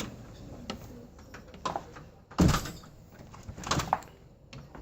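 A heavy dull thump about halfway through, followed a second later by a cluster of lighter knocks and scraping, with scattered small clicks around them.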